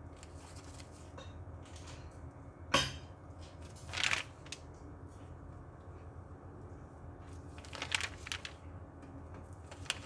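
A rabbit nibbling at and rustling the newspaper it sits on: a few short crackles and crunches, one at about three seconds, one near four and a cluster near eight, over a steady low hum.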